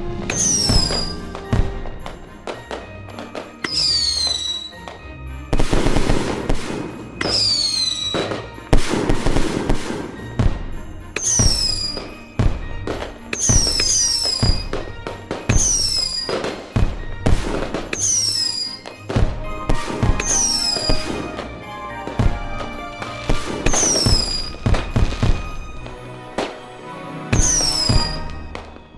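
Fireworks going off in a rapid series of sharp bangs, with longer crackling stretches among them, over music. High, falling whistle-like tones come every couple of seconds.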